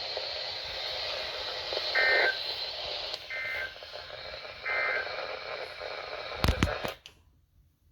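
NOAA Weather Radio sending three short warbling two-tone digital data bursts about a second and a half apart over steady radio hiss. These are the EAS/SAME end-of-message code that closes a Special Marine Warning. Near the end come a few sharp clicks, then the audio cuts out.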